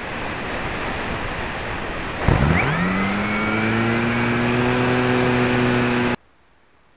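Air rushing past a model glider's onboard camera, then the Walrus's battery-powered electric motor and propeller spinning up with a quick rising pitch about two seconds in and running at a steady whine. All of it cuts off suddenly about six seconds in.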